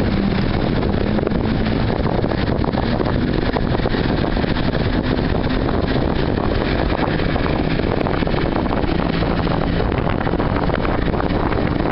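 Bass Tracker boat running at speed under outboard power, with wind rushing over the microphone; a loud, steady noise.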